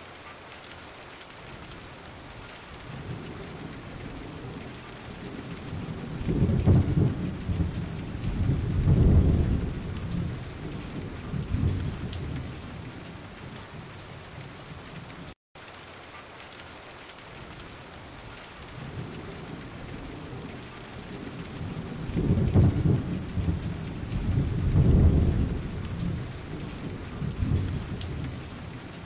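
Steady rushing noise of a flood-swollen river, with a pair of deep rumbles that swell and fade, then the same pair again about sixteen seconds later.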